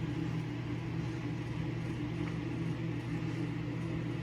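A steady low hum, even in level and pitch throughout.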